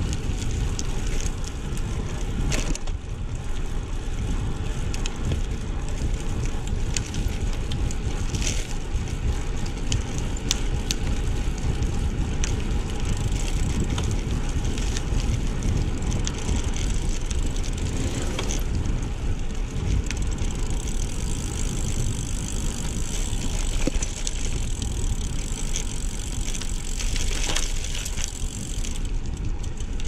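Carraro 062 road bike's thin tyres rolling over a loose gravel and dirt track: a steady rumble of crunching stones, with scattered sharp clicks and rattles from the bike jolting over the rough surface.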